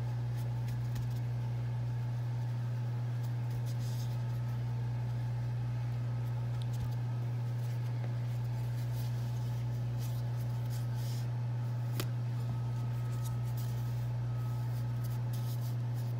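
A steady low hum throughout, with faint crackling and soft clicks of thin filo pastry sheets being handled and folded into triangles on a countertop.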